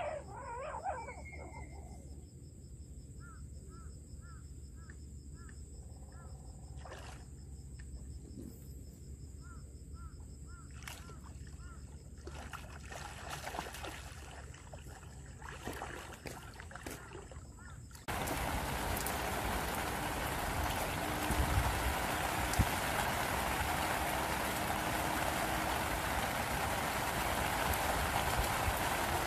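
Quiet pond-side ambience with a bird chirping in short runs of notes and faint splashes from a hooked fish at the surface; then, after a sudden change about two-thirds of the way in, steady rain falling on the pond surface, much louder.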